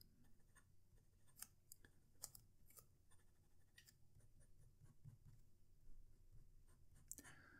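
Very faint scratching and light ticks of a bent-nib fountain pen writing on paper, held with a light touch.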